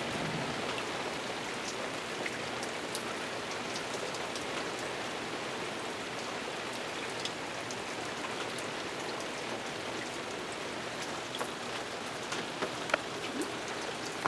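Steady rain falling, with scattered sharp ticks of drops striking a nearby surface, a few louder ones near the end.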